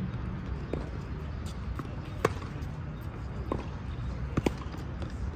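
Tennis ball pops off strings and bounces on a hard court during a rally. There is a sharp pop about two seconds in, a few fainter knocks, and a quick double pop near the end as the near player strikes the ball.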